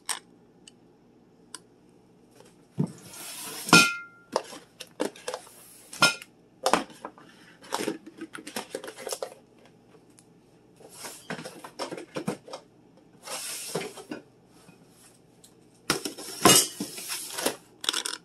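Food containers and packages knocking and clinking as they are handled and set down in a refrigerator bin, with a brief ringing clink about four seconds in and several stretches of rustling.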